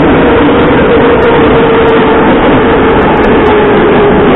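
Moscow metro train running through a tunnel at speed, heard from inside the carriage: a loud, steady rumble and rush with a whine that slowly drifts lower.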